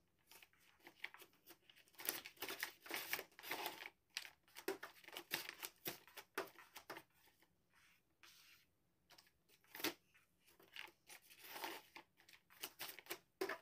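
A sheet of paper crinkling and rustling in irregular bursts as a cat paws and bats at it on a computer keyboard, with a few sharp taps among them. It is a noise the cat makes to get attention.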